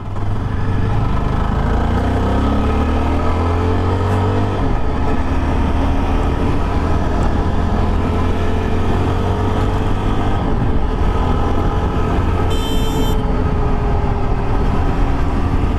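Yezdi Adventure's single-cylinder engine accelerating hard, its pitch rising, dropping at each upshift about five and eleven seconds in, then pulling on fairly steadily. A brief high-pitched tone sounds near the end.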